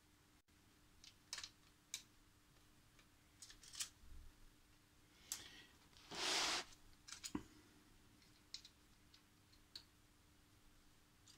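Faint scattered clicks and rustles of hands plugging cable connectors back in and handling the wiring inside an opened ICOM IC-756 Pro III transceiver's metal chassis, with one longer, louder rustle about six seconds in.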